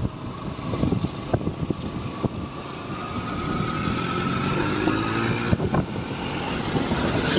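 Engine and road noise of a vehicle driving along a paved road, with wind rumbling on the microphone. A faint whine rises slowly in pitch through the middle.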